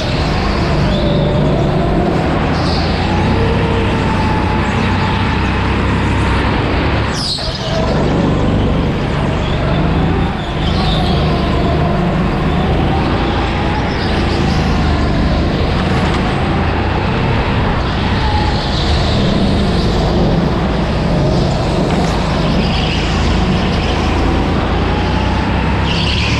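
Onboard go-kart engine running hard, its pitch rising and falling as the kart speeds up and slows through the corners, over steady wind and chassis noise. There are a few brief high squeals along the way and a sharp knock about seven seconds in.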